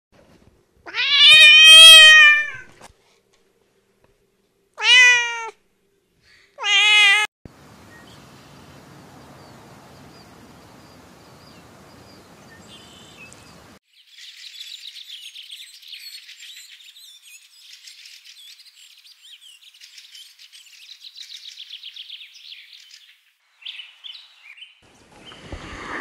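A domestic cat meowing three times: one long loud meow that rises and falls, then two short ones a few seconds apart. After a stretch of faint hiss, small birds twitter faintly and rapidly for about ten seconds.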